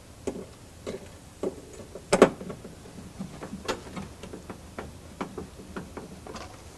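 Screwdriver driving a screw into the sheet-metal inner fender panel to fasten a car alarm horn bracket: a string of irregular clicks and ticks, roughly one or two a second, the loudest a double click about two seconds in.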